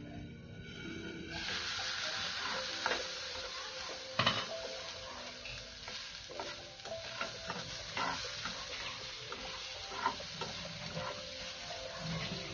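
Chopped asparagus sizzling in a hot aluminium frying pan, the hiss coming up about a second in, with a spatula scraping and knocking against the pan every second or two as the pieces are stirred.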